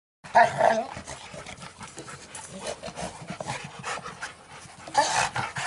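Rottweilers panting while they chew and tug at an old car tyre, with scattered knocks and scrapes. There are short, loud dog vocalisations just after the start and again about five seconds in.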